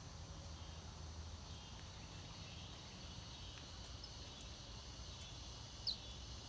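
Faint creekside ambience: a steady insect drone with a low rumble beneath it, and one short high chirp near the end.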